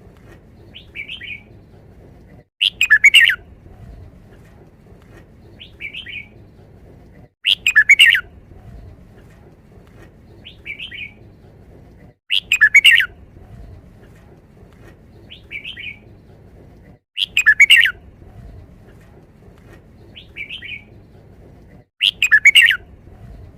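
Red-whiskered bulbul singing its short five-syllable song phrase, repeated five times at steady intervals of about five seconds. A shorter, fainter call comes between the phrases.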